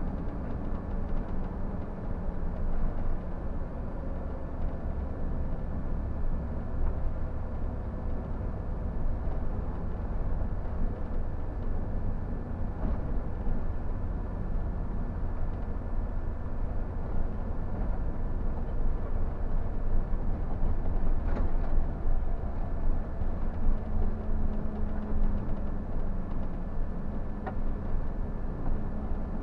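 Scania tour bus heard from the driver's cab while driving slowly: a steady low engine rumble with road noise, and a couple of faint brief ticks.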